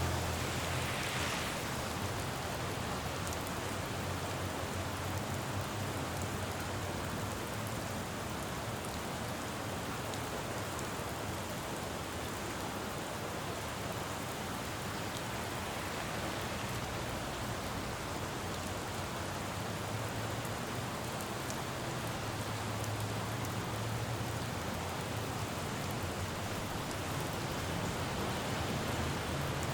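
Steady rain falling on a city road, with the low rumble of traffic underneath that swells about a second in, again around twenty seconds in, and near the end.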